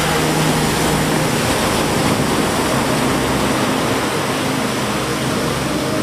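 Small waves washing up onto a sandy beach: a steady, even rush of surf.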